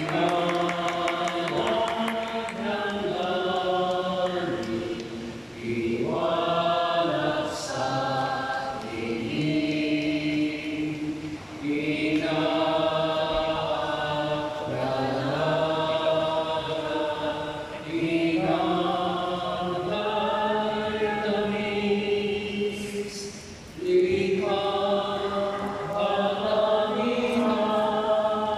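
Choral chant: voices singing slow, sustained phrases of about six seconds each, with a short break between phrases.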